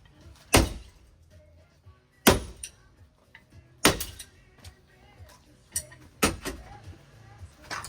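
Ceiling fan being struck apart: four loud blows, each with a metallic ringing clatter, with smaller knocks and rattling in between.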